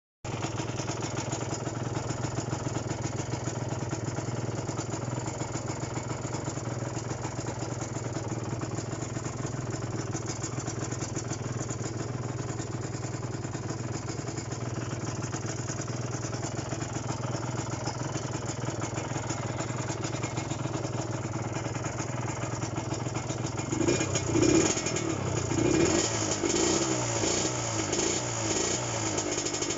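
Kawasaki AR125R's two-stroke single-cylinder engine idling steadily, then revved in a few short throttle blips from about 24 seconds in.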